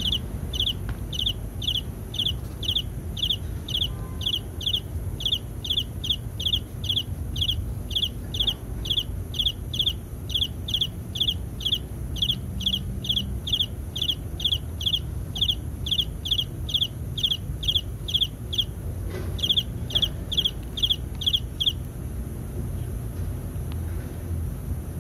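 Rhythmic high-pitched animal chirping, about two and a half chirps a second, pausing briefly a little after halfway and stopping near the end, over a steady low rumble.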